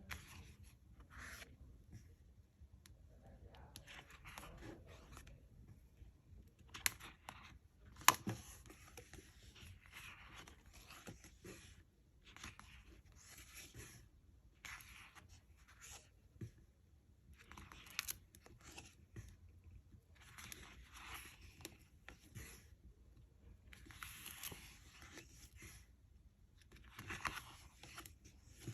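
Pages of a paper sticker book being flipped one after another: a run of short, faint papery swishes, one every second or two, with a couple of sharper taps about seven and eight seconds in.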